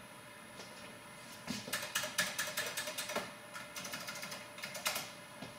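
Computer keyboard keys being pressed in a quick, uneven run of clicks, starting about a second and a half in and stopping shortly before the end, over a steady background hum.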